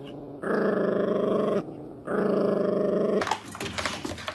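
Dog growling: two long, rough growls of about a second each, then a quieter, ragged stretch before the sound cuts off.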